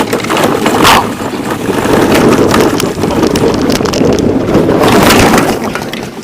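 Plastic toy car rolling fast down a hill: a loud, rough rumble of its plastic wheels and body rattling over the ground, with many small knocks and wind buffeting the microphone. It swells about a second in and again near the end, then fades.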